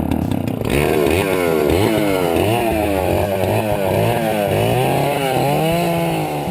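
Homelite two-stroke chainsaw running, its engine pitch rising and falling over and over as the throttle is worked.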